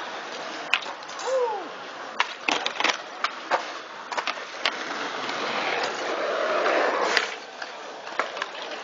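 BMX bike tyres rolling and scuffing on smooth skatepark concrete, with many sharp clicks and knocks from the bike and a swell of rolling noise that builds toward the end and then drops away. A brief falling squeak comes about a second and a half in.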